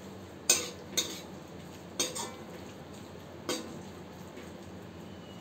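Steel spatula stirring a masala of soya chunks in a metal kadhai, knocking and scraping against the pan in about five sharp clinks.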